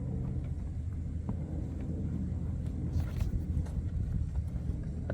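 Steady low rumble like an idling vehicle engine, with a few light clicks and taps, the clearest about three seconds in.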